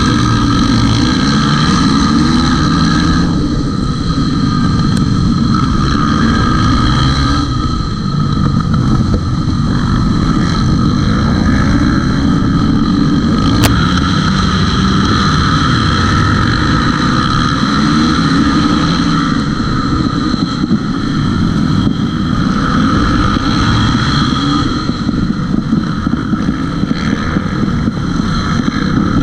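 The single-cylinder four-stroke engine of a 2006 KTM 450 supermoto, heard close up, revving and pulling hard off the start line among a pack of other racing motorcycles. A sharp click about fourteen seconds in.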